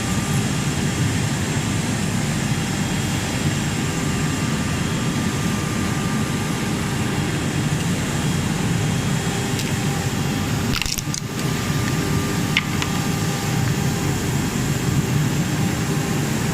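Steady mechanical din of machines running in an exhibition hall, a low rumble with faint steady high-pitched whines over it. A brief scraping sound comes about eleven seconds in and a short click about a second later.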